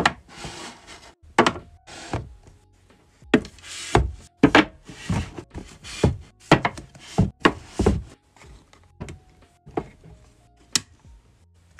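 Paperback manga volumes and small figures being slid along and set down on a shelf: a quick run of soft knocks and short sliding rubs, with music underneath.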